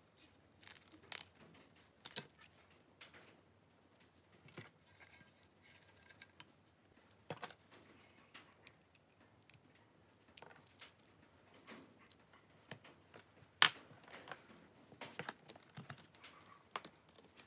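Small irregular clicks, taps and light scrapes as gloved hands handle a disassembled smartphone and its circuit board with metal tweezers on a silicone repair mat. The sharpest click comes about three-quarters of the way through.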